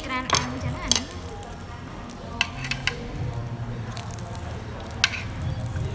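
Metal tongs clicking against a dome-shaped tabletop grill and its dishes, a few sharp clicks over a steady hiss.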